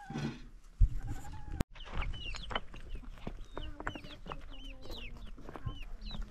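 Farmyard chickens clucking and chirping, with many short high chirps after a sudden break in the sound about a second and a half in. A single thump comes just under a second in.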